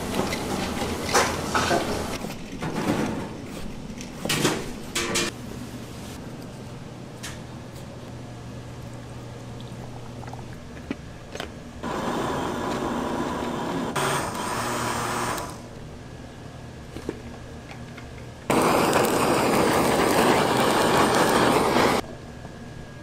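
Kitchen knife chopping roasted red peppers on a plastic cutting board, a quick run of sharp strokes. A countertop blender then purées the peppers and onions in two runs of about three seconds each. The second run is louder and cuts off suddenly near the end.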